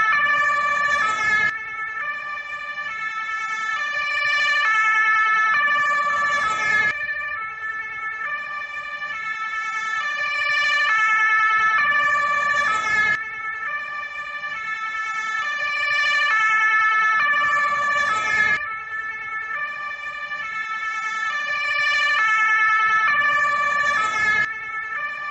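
Danish fire engine's two-tone siren, alternating steadily between a high and a low note about twice a second. Its loudness swells and fades, with a short rush of noise about every six seconds, five times in all.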